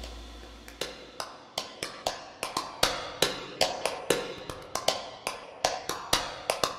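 Background music in a sparse break: a held note fades out, then sharp percussive clicks tick about three times a second, quickening toward the end, just before the full beat with heavy bass comes back in.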